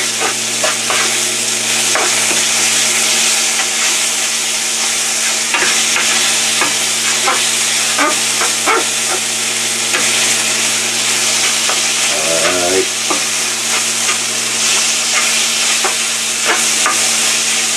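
Fried rice with beef kalbi and pickled plum sizzling in a frying pan as it is stirred and tossed, with the spatula scraping and clicking against the pan every second or so. A steady low hum runs underneath.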